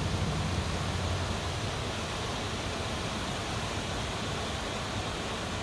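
Steady rushing of river water, an even hiss with a low rumble underneath.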